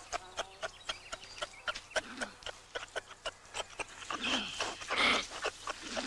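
Grey kangaroos vocalising during a mating challenge: a run of quick dry clicks, about four a second, then louder hoarse calls from about four seconds in.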